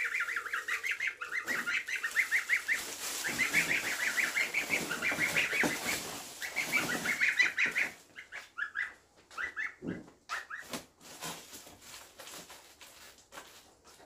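Young birds peeping rapidly and continuously for the first eight seconds or so. After that come scattered crinkles and rustles of foil bubble insulation being spread over a mesh pop-up pen, with a few more peeps between them.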